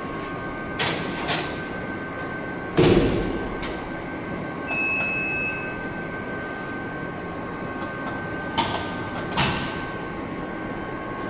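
Laboratory drying oven's metal door shut with a loud thud about three seconds in, then a single electronic beep from its control panel, with a few sharp clicks before and after, over a steady hum.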